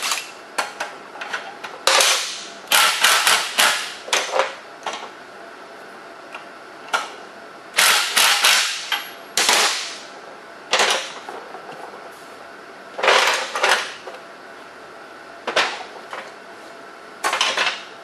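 Hand wrenches tightening a minibike's rear axle nuts: repeated bursts of metal clicking and scraping, each lasting up to about a second, about a dozen in all.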